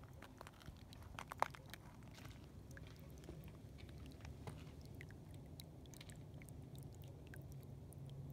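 Water welling up through a hole in driveway ice and bubbling into the pooled water: a faint low rushing with scattered small pops and crackles, a sharper one about a second and a half in.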